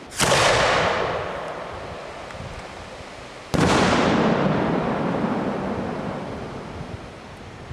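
Two homemade aerial firework shells bursting, one just after the start and one about three and a half seconds in. Each bang trails off slowly over a few seconds.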